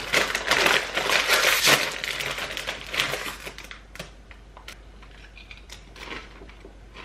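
Crinkling of a foil-lined Doritos chip bag as a hand rummages inside it, loudest in the first two seconds, then thinning to a few scattered crackles.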